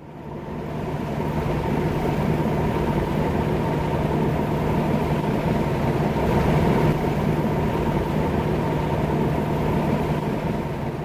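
Jeep Cherokee XJ's 4.0 L inline-six engine running steadily with an even hum, fading in over the first couple of seconds.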